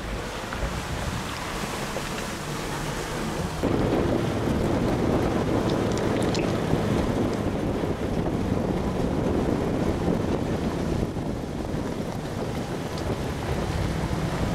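Jeep running as it drives off-road: a steady engine and tyre rumble mixed with wind buffeting on the microphone, getting louder about four seconds in.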